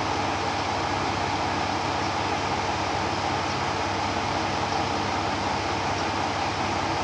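KiHa 54 diesel railcar's engine idling steadily, with an even low throb.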